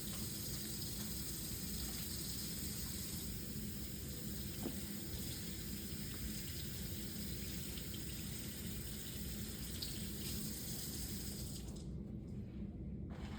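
Water running steadily from a tap into a sink, an even rushing hiss.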